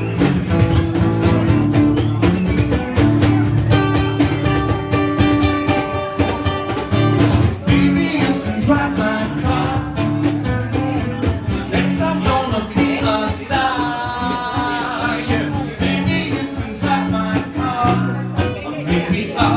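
A band playing upbeat music: guitar over a steady drum beat, with a voice singing in places.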